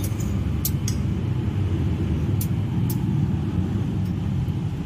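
Haier microwave oven running with a steady low hum, a metal pan heating inside it, with a few faint sharp ticks over the hum.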